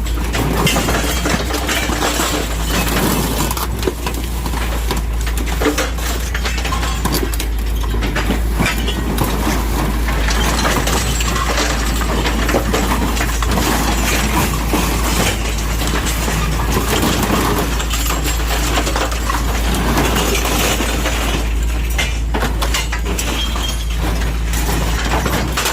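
Excavator's hydraulic cutting shear crushing and tearing apart a Mercedes truck cab, a continuous crunching of sheet metal and breaking glass with many sharp cracks, over the steady low hum of the excavator's engine.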